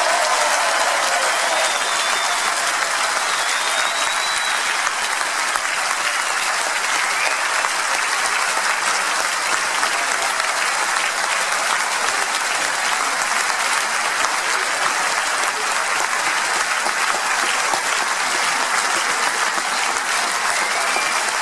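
Large crowd of about 2,500 people giving a standing ovation: steady, dense applause from many hands clapping at once, echoing in a big sports hall.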